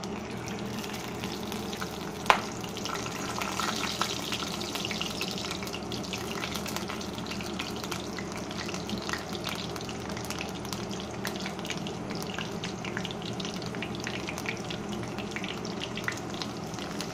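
Bay leaves and whole spices sizzling in hot mustard oil in a steel wok: a steady sizzle with many small crackling pops, and one sharp click about two seconds in.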